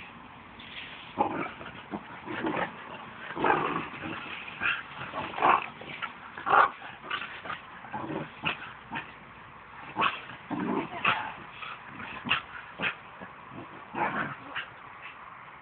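An Australian Shepherd and a Welsh Corgi play-fighting, giving short barks and yips in irregular bursts.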